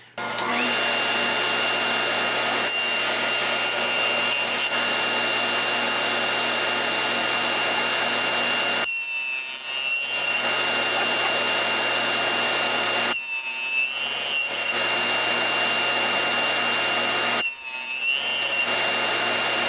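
Table saw running steadily while a box-joint jig carries a stack of pine boards through the blade to cut the finger slots. Three times, about four seconds apart, the tone briefly wavers for about a second.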